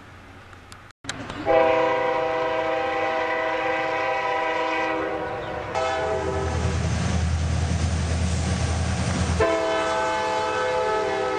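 Diesel train horn sounding in long, steady blasts that follow one after another, with a low rumble of the train running beneath the middle blast.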